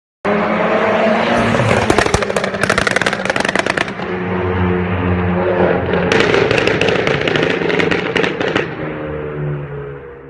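VW Golf Mk7 R's turbocharged four-cylinder engine revving, with two long runs of rapid exhaust crackles and pops as the revs fall on overrun. This is overrun fuel-cut crackle from a tuned engine map.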